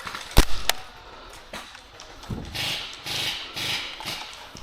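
Airsoft gun shots: two sharp cracks about a third of a second apart, a fainter one a second later, then a few seconds of muffled rustling noise.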